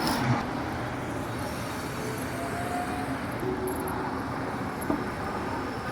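Steady outdoor vehicle noise, a continuous rumbling hum of traffic with faint brief tones rising out of it.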